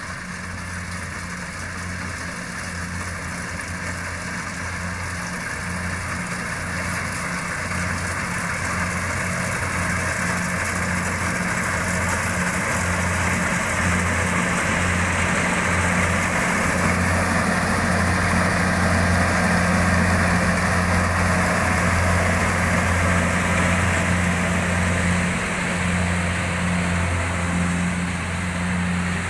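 Rice combine harvester's engine running with a steady low hum and a broad mechanical clatter. The sound grows louder over the first half and then holds.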